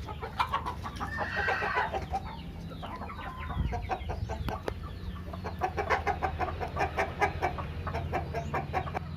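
A flock of chickens clucking and chirping, many short calls overlapping, with one louder call about a second in, over a steady low hum.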